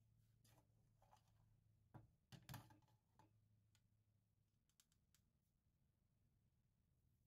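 Near silence with a few faint clicks and knocks, the loudest a short cluster about two seconds in, over a low steady hum.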